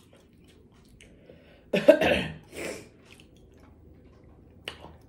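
A woman coughs twice, a loud cough about two seconds in followed by a weaker one, brought on by spicy buffalo wing sauce.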